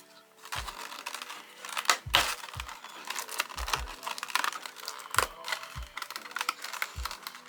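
Figure packaging being handled and unwrapped: irregular crinkling, rustling and light tapping of plastic and cardboard, over faint background music with a low beat.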